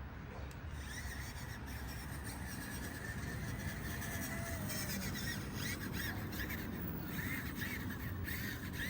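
Birds calling repeatedly over a steady low background rumble, the calls coming more often in the second half.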